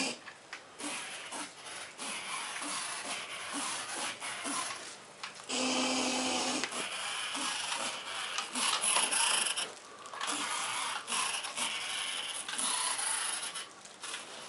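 Remote-controlled inflatable flying shark balloon swimming overhead: a rustling, rubbing noise from its foil body and tail drive, with faint blips recurring about twice a second. About five and a half seconds in, a steadier whirring stretch lasts just over a second.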